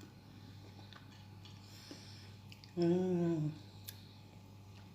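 A woman's short hummed "mmm", falling slightly in pitch, about three seconds in, over a faint steady hum, with a light click shortly after.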